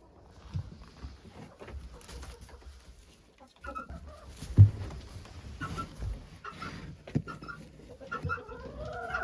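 Chickens clucking, with several dull knocks and thumps, the loudest about halfway through, and a longer rising call from a hen starting near the end.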